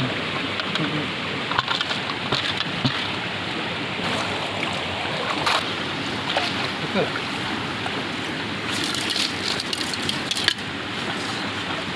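Shallow forest river water running and splashing, a steady rushing hiss with a few sharp clicks and splashes.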